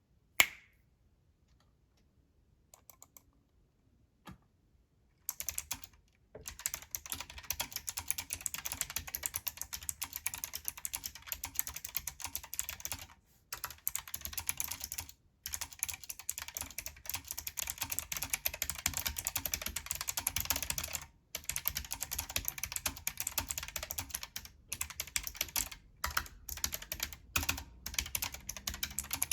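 Fast typing on a Keychron K1 v4 low-profile mechanical keyboard with Gateron low-profile blue clicky switches: high-pitched clicks together with a clanky bottoming-out sound from the short key travel. One sharp click comes just after the start, then steady typing from about five seconds in, with a couple of short pauses.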